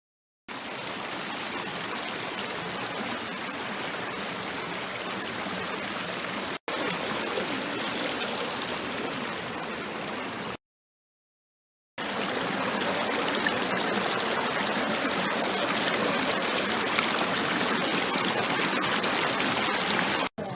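Steady rush of flowing water, in three stretches joined by abrupt cuts, with a second and a half of dead silence near the middle.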